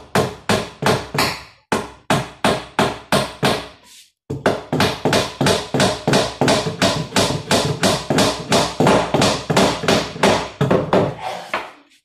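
Hammer driving nails into the wooden base of a homemade shelf, in steady strikes. There is a short break about two seconds in and another about four seconds in, then faster blows, about four or five a second, until near the end.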